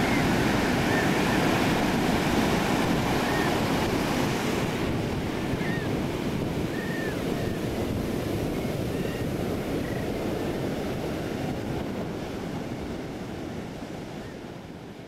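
Surf breaking and washing up onto a sandy beach: a steady rushing wash of water, with a few short high chirps over it. The sound fades slowly down towards the end.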